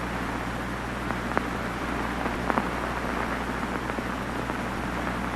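Radio static: a steady hiss over a low electrical hum, with a few faint crackles, typical of a broadcast signal being interrupted.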